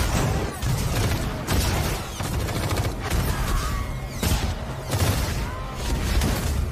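Action-film sound effects of a drone strike: a dense, continuous barrage of explosions and rapid gunfire.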